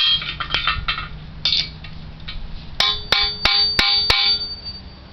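Hammer striking steel on a Bobcat Bob-Tach plate: a few light taps, then about five sharper blows in quick succession about three seconds in, each leaving a metallic ring. The tapping is meant to loosen a cut weld so the part breaks free.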